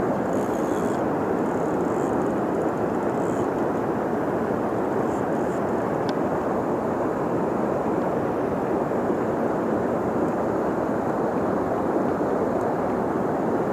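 Steady rush of river current running over rocks and shallow riffles.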